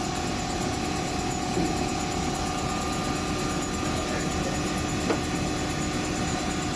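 Steady running hum of a PET preform injection-moulding line: a constant mechanical drone with a few held tones over a low rumble. A light tap about five seconds in as a plastic preform is set down on a scale.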